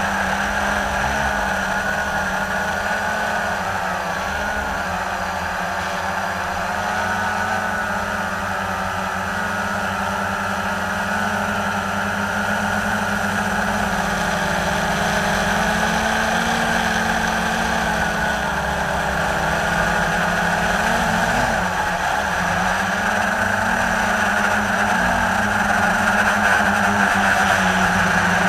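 Blade 350 QX3 quadcopter's electric motors and propellers whining steadily, heard from its onboard camera, the pitch drifting up and down as the throttle changes, over a low rumble of wind on the microphone.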